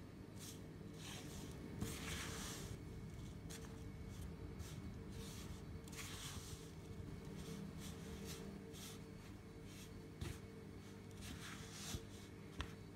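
Silicone spatula stirring and scraping crumbly flour dough around a wooden bowl: repeated soft rasping strokes, roughly two a second, with a few sharp clicks against the bowl, over a low steady hum.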